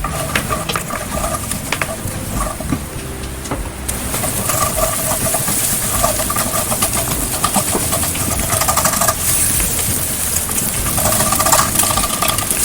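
Chopped onion sizzling in hot oil in a frying pan, the hiss getting brighter and louder about four seconds in. A faint whine comes and goes over it.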